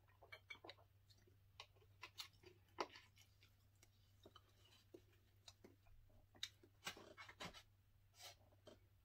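Soft, scattered clicks and taps of eating and drinking: gulps and handling of a plastic sports-drink bottle, then a fork working in a foam takeout tray, with chewing. The sharpest tap comes about three seconds in.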